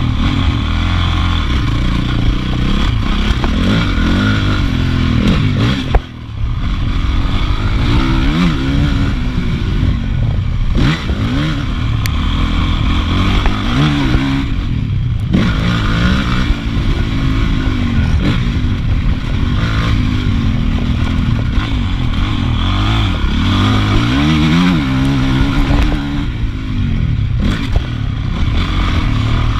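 Honda CRF450 motocross bike's single-cylinder four-stroke engine, revving up and falling back over and over as it is ridden hard around a dirt track. The sound drops away briefly about six seconds in.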